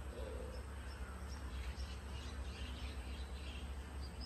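Outdoor ambience of birds and insects: scattered faint chirps over a steady low rumble.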